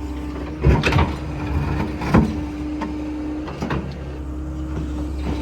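Excavator engine running steadily with a held hydraulic whine, while broken concrete knocks and clanks against the bucket: a pair of sharp knocks about a second in, a loud one about two seconds in and another near four seconds.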